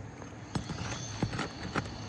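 Four light, irregularly spaced knocks of a hand tool working on asphalt roof shingles, as nails are being pulled to free a damaged shingle.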